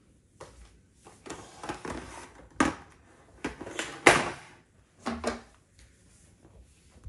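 Irregular knocks, thuds and rustling of small children crawling and playing on a wooden floor among chair and table legs, the loudest knock about four seconds in.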